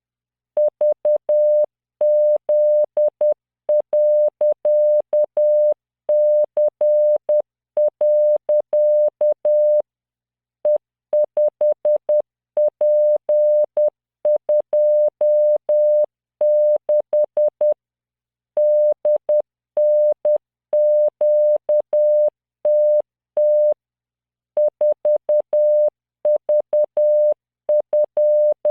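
Morse code played as a 600 Hz tone at 10 words per minute by a computer code-practice program, keyed in dots and dashes with longer pauses between random five-character groups. Each tone starts and stops with a faint click.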